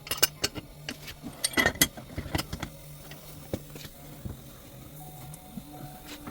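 Metal clicks and knocks of a pipe wrench turning a heat-loosened 60-year-old galvanized pipe joint, quick and dense in the first couple of seconds, then sparser.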